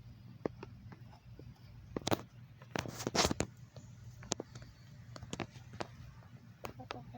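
Backyard poultry: scattered short clicks and scratches among the birds, with a cluster of louder calls about two to three seconds in.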